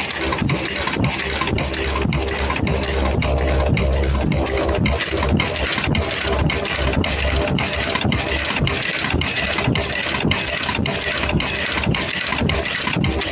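Automatic 3-ply face mask earloop welding machine running: steady mechanical noise that pulses about three times a second with the machine's cycle.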